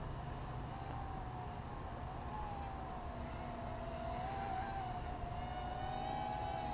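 Dromida Kodo quadcopter's small electric motors and propellers whining steadily, the pitch wavering as the throttle changes and splitting into two close tones in the second half. A low wind rumble on the microphone runs under it.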